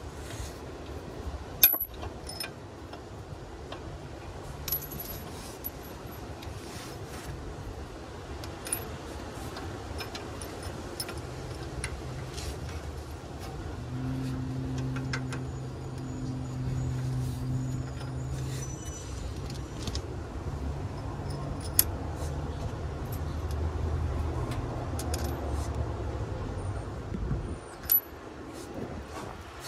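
Scattered metal clinks and clicks of a hand wrench and loose bolts and washers on a pickup's front sway bar end link, with a few sharper clicks, over a steady low rumble that carries a hum for a few seconds about halfway through.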